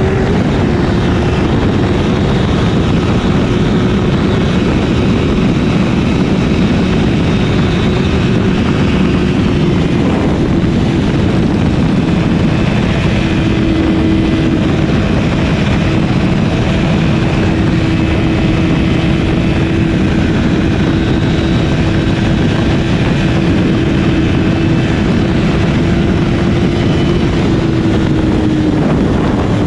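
Honda CBR1000RR's inline-four engine running at a steady high pitch at speed, under a heavy rush of wind noise. The engine note dips slightly near the end.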